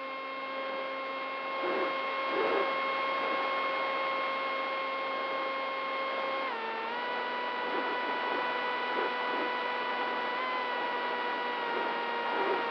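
DYS Fire 2206 2300KV brushless motor and propeller of a flying wing in flight, a steady whine heard through the onboard camera over a rush of air noise. The pitch drops a step about six and a half seconds in.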